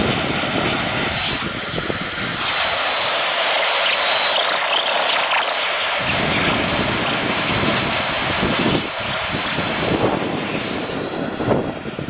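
Static and hiss from an AM radio tuned to a weak, distant station, with the sound cut off above about 4 kHz. The noise shifts in body as the signal fades, with a few crackles near the end.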